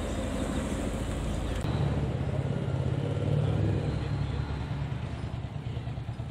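A motor vehicle's engine running close by, a low hum that comes in about two seconds in, is loudest a little past halfway and then slowly eases off. Before it there is general outdoor noise.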